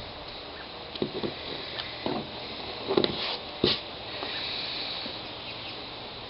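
A few light knocks and clicks from handling tools and the kayak between drilling, about five spread over a few seconds, over a faint steady hiss.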